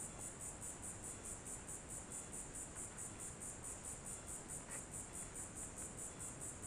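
Insects chirping in a steady high-pitched pulse, about five chirps a second, with no let-up.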